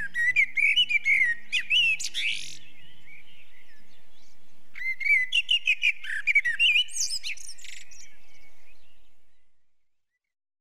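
Birds chirping and twittering in quick, rising and falling phrases, in two bouts of a few seconds each over a steady background hiss, with the last notes of a music track fading out under the first bout. The whole sound then fades out to silence near the end.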